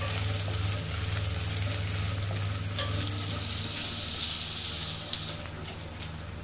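Onion, chillies, curry leaves and crushed garlic sizzling in hot oil in a non-stick kadai while a wooden spatula stirs and scrapes them: the tempering being sautéed for tomato-pepper rasam. The sizzle stays steady and eases a little near the end.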